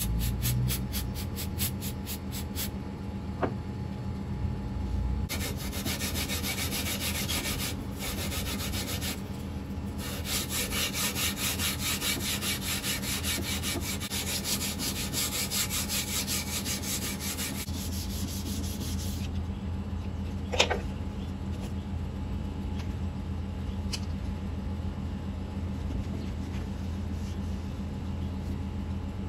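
Sandpaper rubbed by hand along a steel knife blade clamped on a wooden block, in quick back-and-forth strokes, several a second, that come in runs with short breaks and stop about two-thirds of the way through. A single sharp click follows shortly after.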